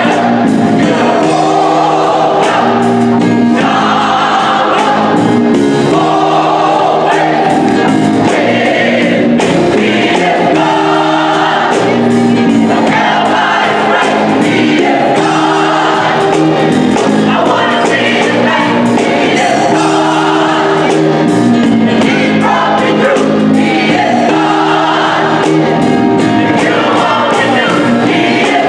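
Gospel church choir singing together, loud and sustained.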